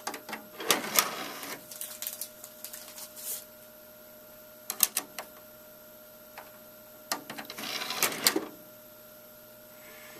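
Clicking and rattling of small plastic parts in three bursts, the first and last longest and loudest: the small driver disc being handled and loaded into the computer.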